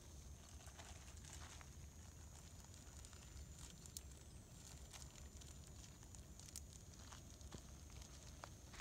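Near silence: faint outdoor ambience with a low steady rumble, a thin high steady tone and a few scattered soft clicks.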